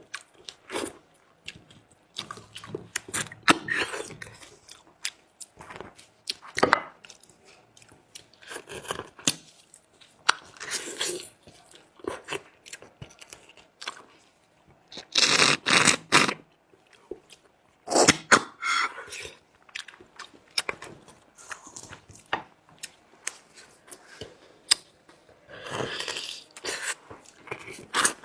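Close-up mouth sounds of someone eating lamb leg bones for the marrow: irregular chewing, biting and crunching with wet clicks and scrapes. The sounds are louder about halfway through and again near the end.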